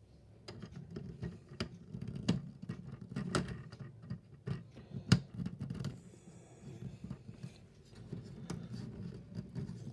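Plastic Mega Bloks building pieces being handled and pressed onto a playset: a run of small clicks and knocks, the sharpest about five seconds in, over a low rumble of handling.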